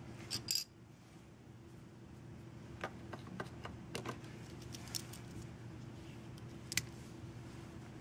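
Small metallic clicks and ticks of a steel paper clip being handled and slid into the empty corkscrew slot of a Victorinox Swiss Army Knife, with a faint click/snap near the end as the clip seats fully. A pair of sharp clicks right at the start are the loudest sounds. A steady low hum lies underneath.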